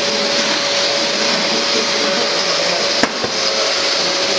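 Festool CTM 36 E AC HD mobile dust extractor running: a steady rushing hiss with a steady hum. A sharp click about three seconds in, with a brief dip in the noise and a second, smaller click just after.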